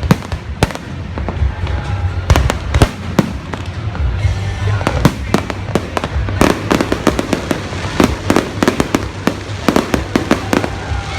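Fireworks display: a run of sharp bangs and crackles over deep rumbling booms, turning into a dense rapid crackle about six seconds in.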